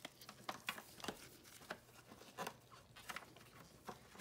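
Faint, scattered clicks and taps of nitrile-gloved hands handling the plastic parts and rubber drive belt of an upright vacuum cleaner's open brush housing.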